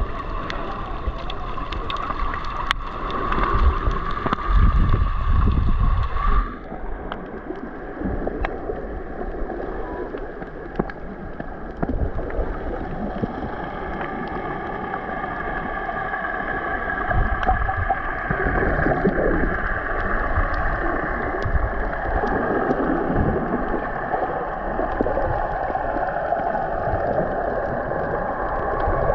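Muffled water sloshing and gurgling heard through an underwater camera's housing, with low rumbling surges. The brighter splashing sound cuts off suddenly about six seconds in, leaving steadier churning water.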